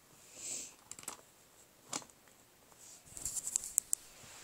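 Faint handling noise: soft rustling and light clicks as the recording device and the doll on its blanket are handled, with a few single clicks and then a quick run of clicks a little after three seconds in.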